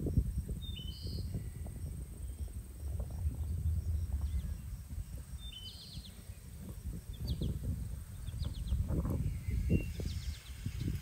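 Small birds chirping in short, high calls a few times, over a steady low rumble and a few soft knocks.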